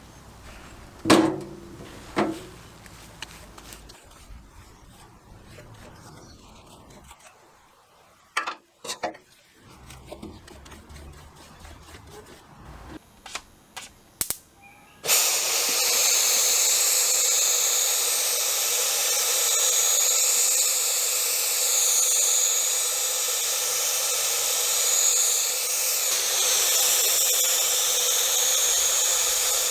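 A few sharp knocks and clicks of handling, then about halfway in a power tool starts suddenly and runs steadily with a hissing, whooshing sound.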